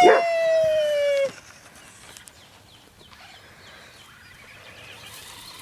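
A long animal call held on one slightly falling note, ending about a second in, followed by faint background.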